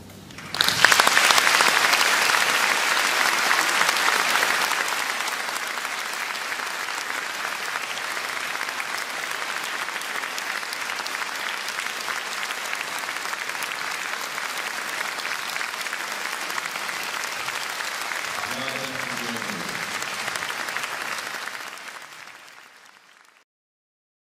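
Concert audience applauding, starting all at once, loudest for the first few seconds, then steady before fading away near the end. A voice calls out briefly shortly before the fade.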